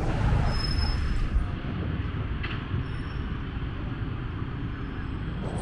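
Steady low rumble of road and rail traffic, easing a little after about a second, with a few faint high whines over it.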